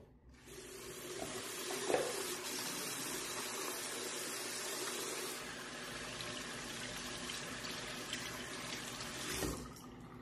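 Water running from a bathroom mixer tap into the sink while hands are rinsed under the stream. It comes on just after the start, with a brief knock about two seconds in, and is shut off near the end.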